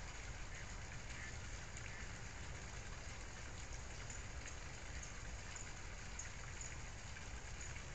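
Steady, even hiss with a low rumble underneath and faint scattered ticks up high, unchanging throughout.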